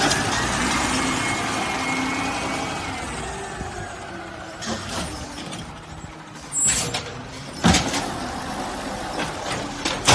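Garbage truck running, its sound fading away over the first few seconds, followed by several sharp knocks and bangs.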